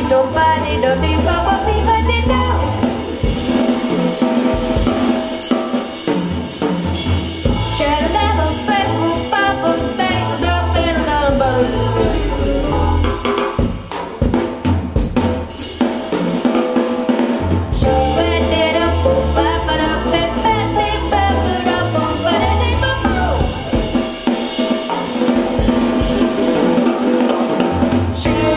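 Recorded music playing with a drum kit prominent. There is a brief break about 14 seconds in where one track gives way to another.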